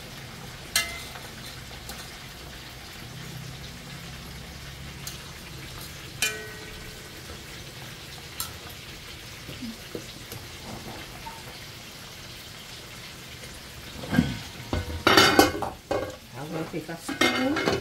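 Pork shoulder sizzling steadily in a hot pot, with a few sharp metal clinks. About fourteen seconds in, a run of loud knocks and scrapes of a utensil against the pot.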